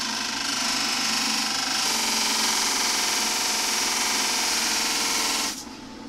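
Electric disc sander running with a molded leather piece on a plywood block pressed against the abrasive disc, a loud steady sanding noise over the motor hum. The sanding noise stops about five and a half seconds in as the piece comes off the disc, leaving the motor running.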